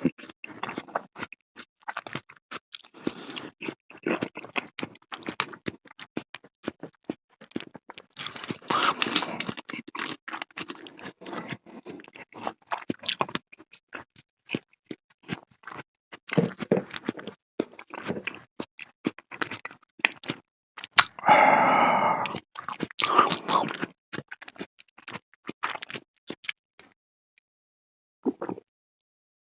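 Close-miked eating of a creamy fruit salad with cheese: wet chewing and smacking with many small sharp clicks, in spells, the loudest about two thirds of the way in, then stopping near the end.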